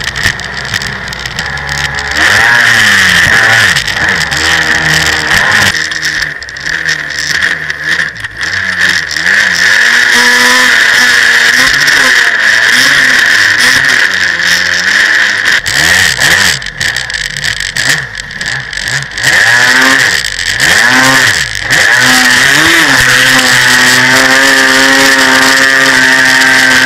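Jet ski engine revving up and down as it is ridden, its pitch rising and falling with the throttle and holding steady near the end, over a steady rush of water and wind.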